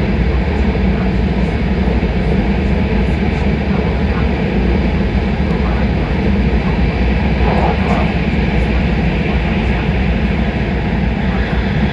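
Steady low rumble and rush of a Shinkansen high-speed train running at speed, heard from inside the passenger cabin.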